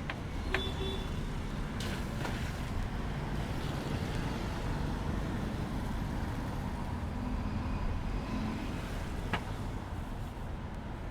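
Steady low rumble of street traffic, with a few short sharp clicks, one about half a second in and another near the end.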